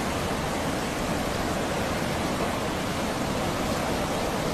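Fast, turbulent river rapids rushing, a steady even noise with no breaks.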